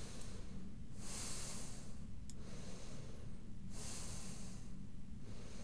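A man's breathing close to the microphone: two soft breaths about three seconds apart, over a steady low hum.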